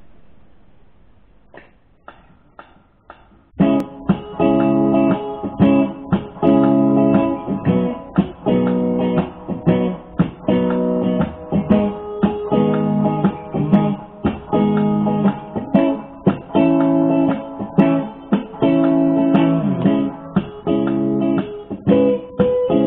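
Knaggs Tuckahoe electric guitar played through a Mesa Boogie Fillmore 50 tube amp: a few quiet strums, then about four seconds in a loud rhythmic strummed chord pattern with sharp percussive strokes between the ringing chords.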